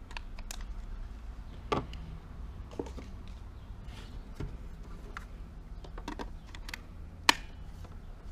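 Plastic clicks and short rattles from handling a Makita 12V CXT lithium-ion battery and its charger, with a sharp click about seven seconds in as the battery is brought onto the charger. A low steady hum runs underneath.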